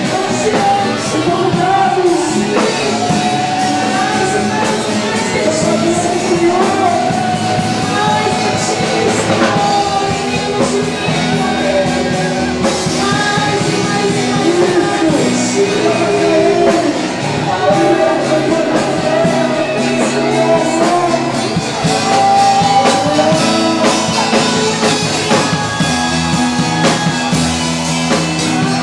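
Live band music with singing, a loud full band with sung melody throughout, echoing in a large hall.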